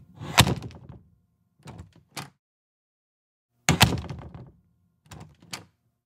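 A door being opened and shut: two loud knocking thumps about three and a half seconds apart, each with a short ringing decay and followed about a second and a half later by two lighter clicks of the latch or handle.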